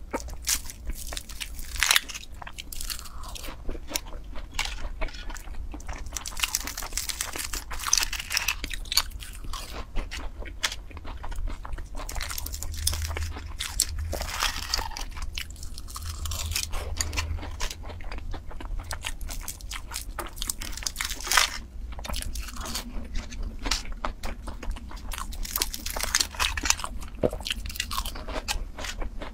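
Close-miked crunching and chewing of flaky egg tart pastry, irregular crisp crackles and bites, with light crinkling from the aluminium foil tart cups being handled.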